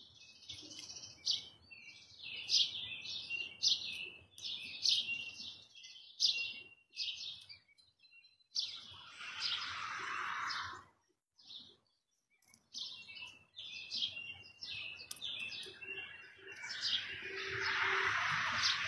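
Small birds chirping, short high chirps repeated over and over with brief gaps. A rushing hiss swells up about halfway through and again near the end.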